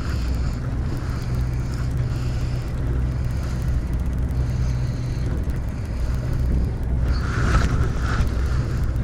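Steady low drone of a sportfishing boat's engine under wind buffeting the microphone, with water noise off the sea. A brief louder rush of noise about seven seconds in.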